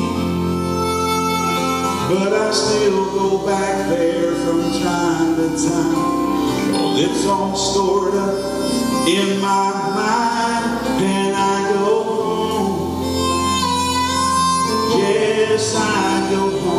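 A man singing a gospel song solo over instrumental accompaniment, his voice coming in about two seconds in.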